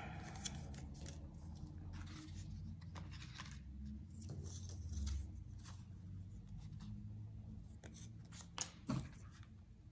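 Faint rustling and crinkling of paper-plate strips being handled and folded by hand, in scattered small clicks and rustles over a low room hum.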